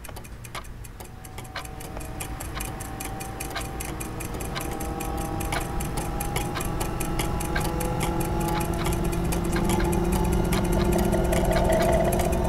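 Clock ticking, with sustained droning tones building underneath and growing steadily louder.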